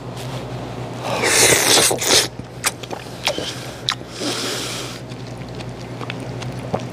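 Raw oyster slurped off the half shell right at a handheld microphone, deliberately made louder for effect. There is a long wet slurp about a second in, a second weaker one around four seconds, and wet mouth clicks in between.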